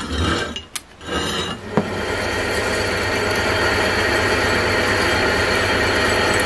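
Bench pillar drill running, its twist bit boring through 10 mm steel plate to make holes for tapped 10 mm threads. The cut starts at the opening, breaks off briefly just before a second in, then goes on as a steady grinding drone.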